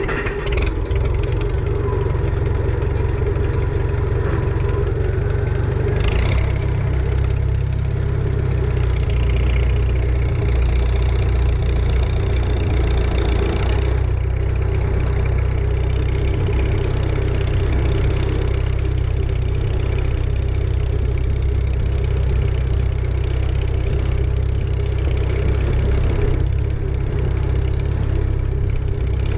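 Farmall H tractor's four-cylinder gasoline engine running steadily, heard up close from a camera mounted on the tractor.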